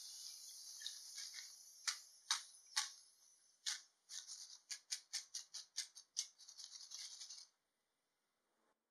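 Hot oil's frying sizzle dies away over the first two seconds, then crisp fried potato chips rattle and clink against a wire spider strainer as it is shaken, in quick shakes about three a second, stopping abruptly near the end. The fading sizzle is the sign that the moisture is cooked out and the chips are crisp.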